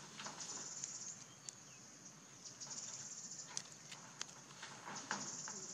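Insects trilling in a high, pulsing chorus that swells and fades several times, with scattered faint clicks.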